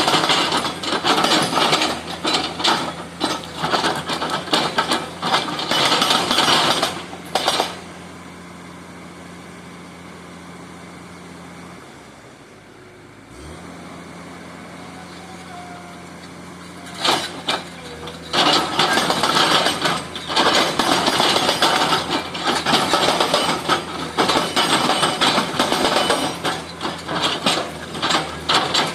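Hydraulic breaker on a Komatsu excavator hammering in rapid, continuous blows, with the excavator's diesel engine humming underneath. The hammering stops for about ten seconds midway, leaving only the engine running steadily, then starts again.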